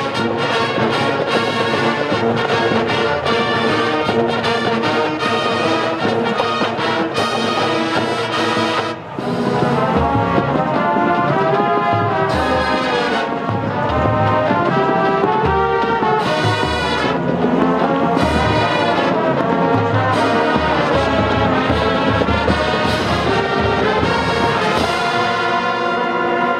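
Marching band of brass and drumline playing a full-ensemble passage: sustained brass chords over quick, even drum strokes, a brief drop about nine seconds in, then pulsing low brass notes under a moving melody line.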